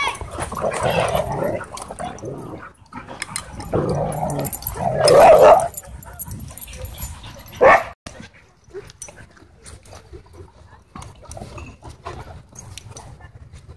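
Several dogs wrestling in play, growling and barking in rough bursts, loudest about five seconds in, with one short sharp bark just past halfway; after that it is quieter.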